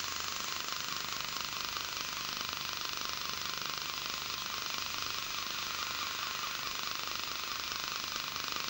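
Er:YAG dental laser firing through its sapphire tip against a tooth: a rapid, even train of crackling pulses over a steady hiss as it ablates tooth tissue to prepare the cavity for a composite filling.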